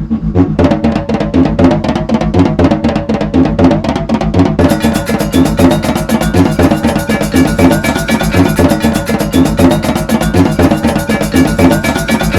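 Loud background music with a steady, fast drum beat; cymbals come in about four and a half seconds in, filling out the sound until it cuts off at the end.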